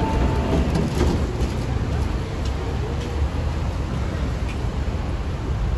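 Steady hum and low rumble of a metro train standing at a station platform with its doors open, mixed with indistinct voices.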